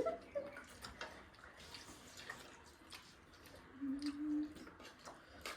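Faint scattered clicks and taps of people eating, with a short hummed voice about four seconds in.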